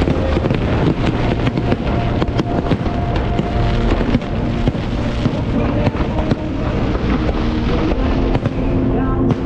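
Aerial fireworks bursting and crackling in rapid succession, many sharp bangs close together, with music playing alongside.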